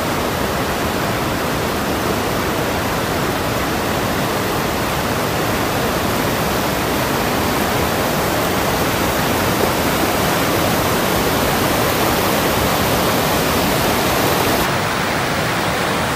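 Sagana River rapids rushing over rocks, a steady wash of white water. The sound shifts slightly near the end as a closer stretch of the rapids takes over.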